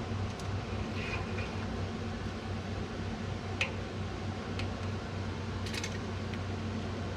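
A steady low mechanical hum, like a fan or motor running, with a few small clicks and taps over it; the sharpest click comes about three and a half seconds in.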